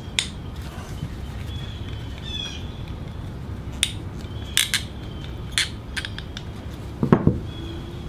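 Small sharp clicks and scrapes of a screwdriver prying at the plastic emulsion tube of a Briggs and Stratton 550EX carburetor, working its two sections apart. About half a dozen separate clicks, with the loudest near the end.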